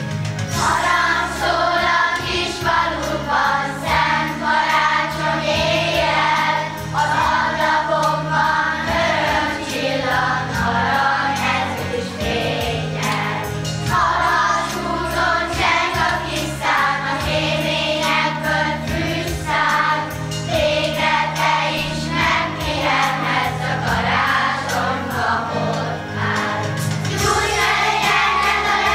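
A children's choir singing a song in phrases over sustained instrumental accompaniment.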